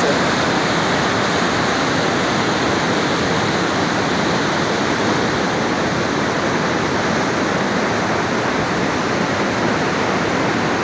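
Kolvitsky waterfall rushing: a steady, loud roar of water pouring over rocks, unchanging throughout.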